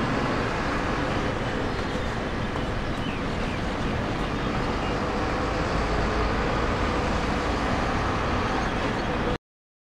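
Steady background rumble of a busy airport, with no distinct aircraft pass or single event standing out. It cuts off suddenly near the end.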